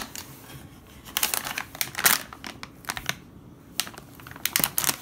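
A shiny plastic blind-bag packet crinkling as it is pulled from its box and handled on a table, in irregular bursts with a short lull a little past the middle.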